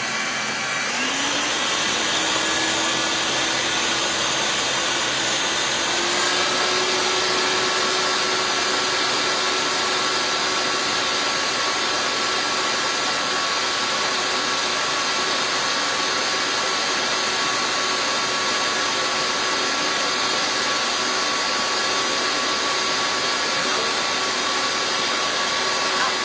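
Countertop blender motor running steadily while blending a red tomato mixture. It picks up speed about a second in and steps up to a higher speed about six seconds in.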